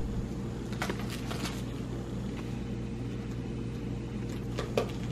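A steady low mechanical hum, like an appliance or fan running in a small room, with a few faint soft clicks about a second in and a brief faint sound near the end.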